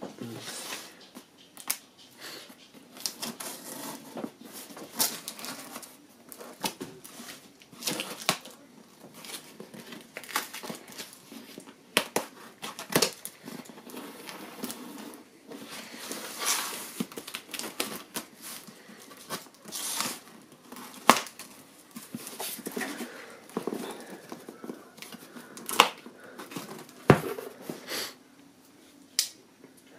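A taped cardboard shipping box is being opened. A small folding knife slits the packing tape, the tape tears and crinkles, and the cardboard flaps scrape as they are pulled open. The sounds come as irregular crackles, scrapes and clicks.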